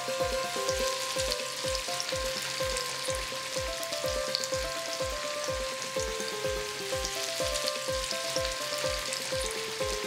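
Lilva (field) bean vadas deep-frying in hot oil, a steady sizzle. Background music with a quick steady beat and a simple melody plays over it.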